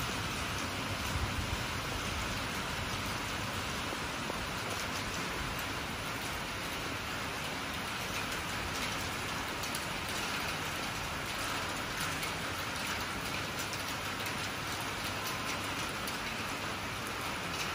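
Steady rain falling: an even hiss with scattered drop ticks and no thunder clap.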